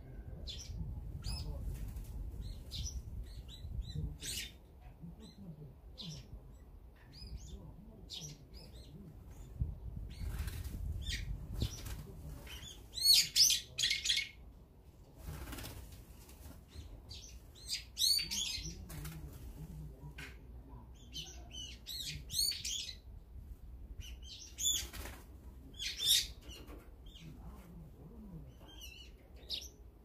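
Small wild birds chirping and calling, with bursts of loud, harsh calls about 13, 18, 22 and 26 seconds in, and wings fluttering as birds come and go.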